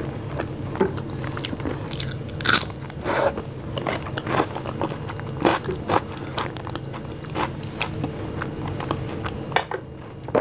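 Close-miked chewing and wet mouth sounds of someone eating rice with mashed vegetables and dal, with fingers squishing and mixing the soft rice on a plate. Irregular short clicks and smacks with no rhythm.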